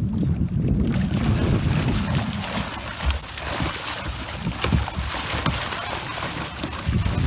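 Mullet thrashing and splashing in a cast net against the side of a boat: a dense, crackling splash from about a second in, over low wind rumble on the microphone.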